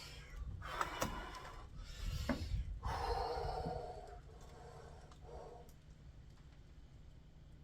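A person's breathy, wordless voice sounds, several in a row over about five seconds.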